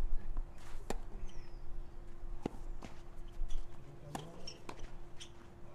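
Tennis rally: three sharp racket-on-ball hits about a second and a half apart, with fainter ticks of bounces and footsteps on the clay between them. A faint steady hum runs underneath.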